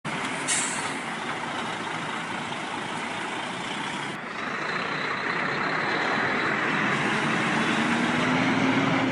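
Heavy diesel vehicle engine running, dubbed in as a sound effect, with a short burst of air hiss about half a second in and a click around four seconds. The engine note slowly rises over the last few seconds.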